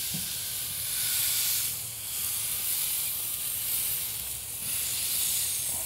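Thick tomahawk steak sizzling as it sears on the hot grate of a charcoal kettle grill directly over the coals, a steady hiss.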